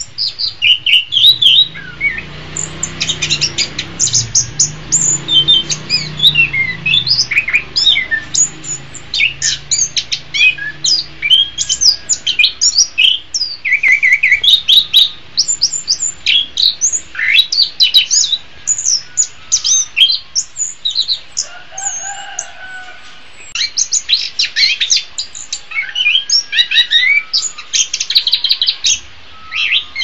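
Chestnut-capped thrush (anis kembang) singing a fast, varied, unbroken stream of high chirps and quick whistled sweeps, with a brief lull about two-thirds of the way through.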